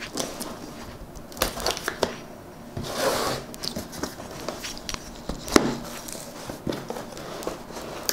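Cardboard box and packaging being handled and opened: crinkling and tearing with scattered knocks and taps, and a longer rustle about three seconds in.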